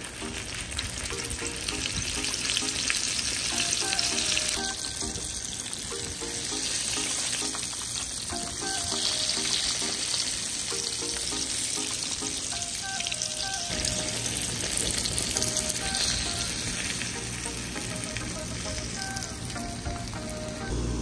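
Tilapia frying in hot oil, a steady sizzle. Background music plays over it until about two-thirds of the way through.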